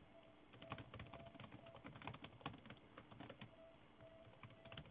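Faint computer keyboard typing: irregular runs of keystroke clicks with short gaps between them.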